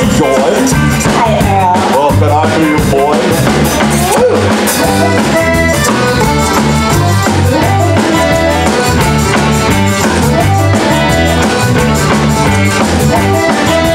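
Live band music with accordion, drum kit, bass and guitar, with a steady beat; tambourine and maracas are shaken along.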